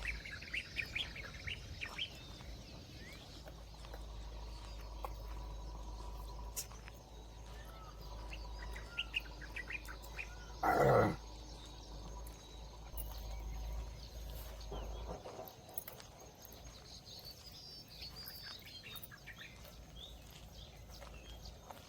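Small birds chirping on and off, with one short, loud pitched call about halfway through.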